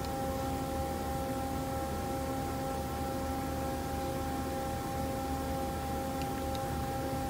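Doosan Lynx 220 CNC lathe powered up: a steady machine hum with several constant tones, and two faint clicks of control-panel buttons about six seconds in.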